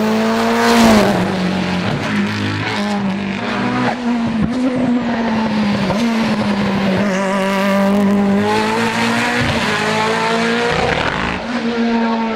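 Hill-climb race cars, a modified Subaru Impreza and then a Lancia Delta-bodied special, accelerating hard through bends. The engines rev high and drop back with each gear change, several times over.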